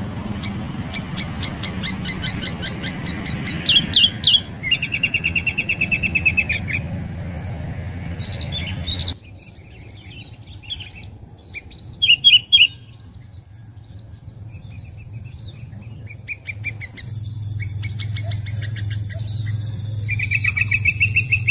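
Sooty-headed bulbul lure calls: fast runs of chirps and short whistled notes, in several sections that switch abruptly, over a steady low hum.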